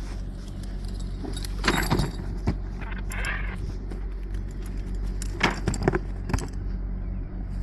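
A steady low engine hum, with a few short metallic jingles and clinks, about two seconds in and again near the end.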